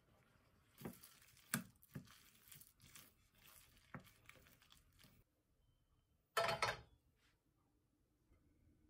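A metal spoon stirs a stiff batter of flour, eggs and chopped greens in a stainless steel bowl: wet squishing and scraping, with several sharp clinks against the side of the bowl. After a break, a single short loud burst of noise comes about six and a half seconds in.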